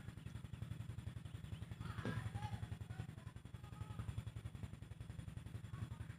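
A small engine running steadily, heard as a rapid, even low thudding.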